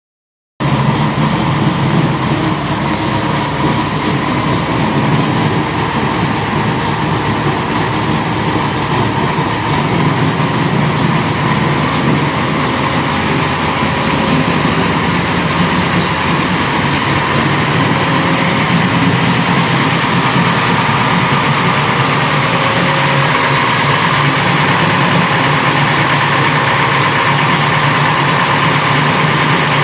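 1973 Camaro's 360 cubic inch small-block V8 with a hydraulic roller cam, idling steadily through a Magnaflow exhaust. It starts about half a second in.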